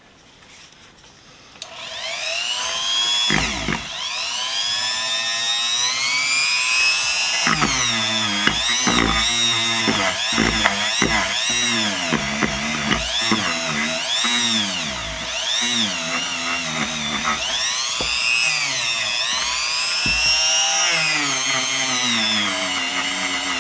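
Power drill spinning a small wire brush against the rusty vise parts to scour rust out of the crevices, starting about two seconds in; the motor's pitch keeps rising and falling as the brush loads and frees up, with scratchy scraping and clicks.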